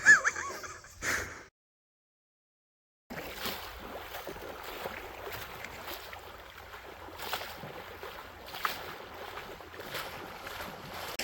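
Steady wind and sea-water noise at the shore, with a few faint ticks, after a short loud sound at the start and a cut to silence of about a second and a half.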